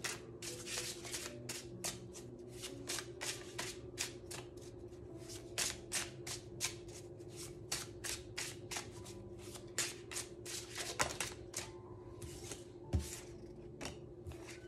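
Tarot cards from a Neo Rider deck being shuffled by hand, overhand, in quick repeated slaps and flicks, about three to four a second. Near the end a single soft knock as a card is laid on the table.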